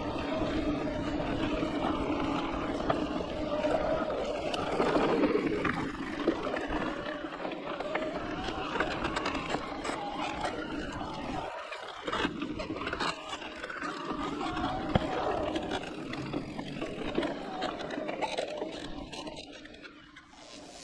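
Giant Reign E+ electric mountain bike ridden over a gravel trail: tyres rolling and crunching over grit, the bike rattling over bumps, and a wavering hum from the Yamaha pedal-assist motor. It fades out near the end.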